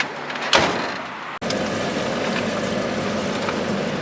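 Steady running noise of a vehicle on the road, engine hum under an even road noise. A single knock sounds about half a second in, and the sound drops out for an instant a little later before the steady noise resumes.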